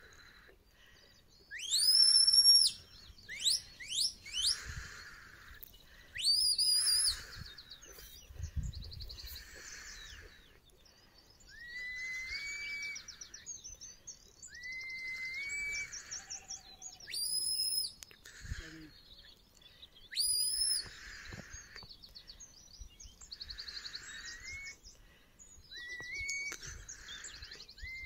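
Shepherd's whistle commands to a working sheepdog: a string of short, sharp rising whistles, the loudest about two seconds in, with lower upward-sliding whistles and warbled trills between them.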